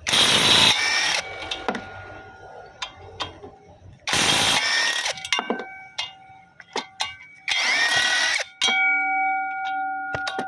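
A power tool working on metal in three short bursts of about a second each, roughly four seconds apart, with scattered clicks between them. After the later bursts, metal is left ringing with a clear steady tone.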